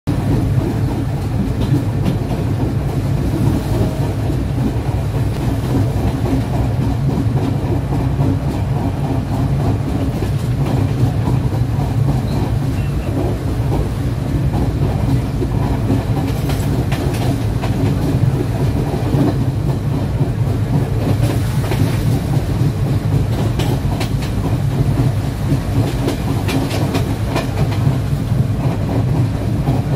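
Passenger train running along the track, heard from an open carriage doorway: a steady low rumble of wheels on rail, with clusters of clicks as the wheels pass over rail joints in the second half.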